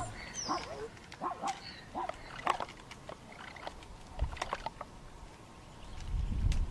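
Short animal cries and yelps, coming thick for the first few seconds and then thinning out, with a few sharp clicks and a low rumble near the end.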